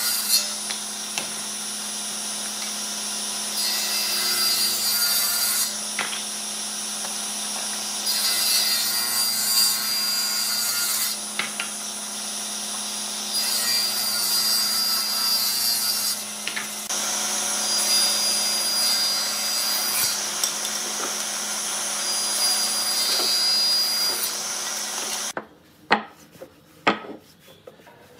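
Table saw running with a steady hum while its blade rips wooden blocks in repeated passes, the cutting noise swelling and dropping every few seconds. Near the end the saw noise stops, and wooden blocks knock sharply several times as they are set down on a bench.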